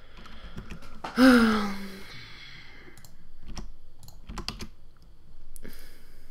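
Computer keyboard keys and mouse clicks tapping irregularly as modelling shortcuts are entered. About a second in, a short vocal hum falls in pitch and is the loudest sound.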